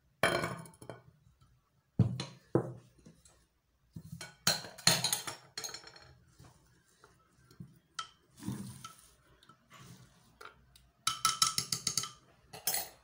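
Clinks and knocks of hands and a utensil against a clay tangia pot and dishes, in separate sharp strokes, with a quick run of short strokes near the end.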